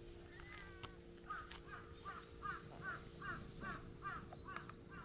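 A bird calling in a quick, even run of short falling notes, about three a second.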